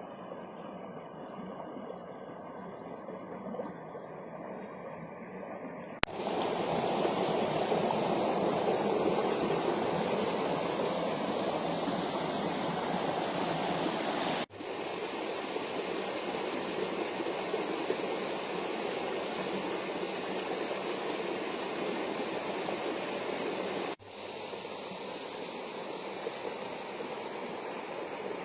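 Waterfall's rushing water: a steady, even rush that is quieter at first and turns much louder and fuller about six seconds in, with sudden changes in level about halfway through and again near the end.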